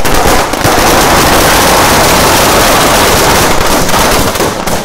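Firecrackers packed inside a burning Dussehra effigy going off in a dense, continuous crackle of rapid bangs, very loud, easing slightly near the end.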